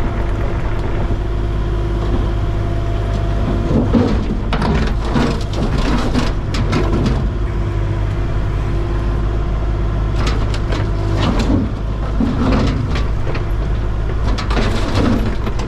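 An engine runs steadily with a low hum, broken by several short clusters of clanks and rattles.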